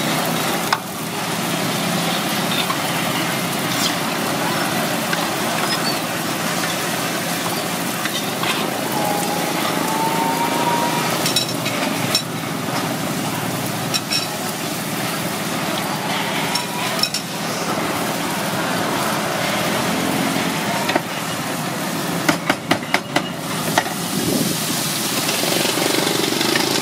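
Sesame-battered banana fritters deep-frying in a basin of hot oil: a steady sizzle, with a quick run of clicks about three-quarters of the way through.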